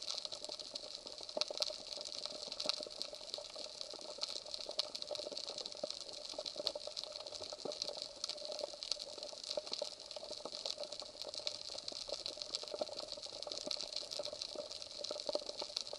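Underwater ambient sound on a rocky reef: a steady, dense crackle of tiny clicks, heard through the camera's underwater housing.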